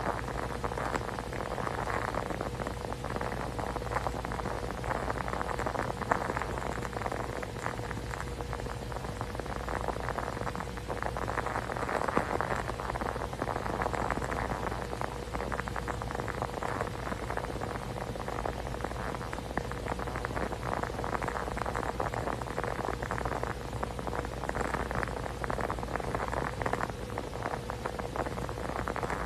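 Steady rain-like pattering and crackling noise, swelling gently a few times, over a constant low hum.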